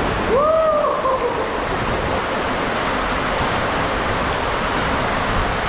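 Steady rushing noise of water and a raft sliding fast down the inside of an enclosed tube waterslide. Near the start a rider gives one short whoop that rises and falls in pitch.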